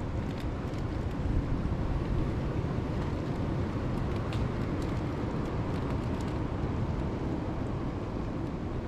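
Steady low rumble of wind and ocean surf, with a few faint light clicks scattered through it.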